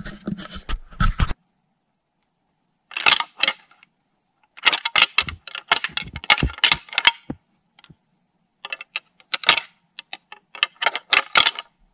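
Crunching and rustling of someone moving about in snow, in irregular clusters of crackles with short silent gaps.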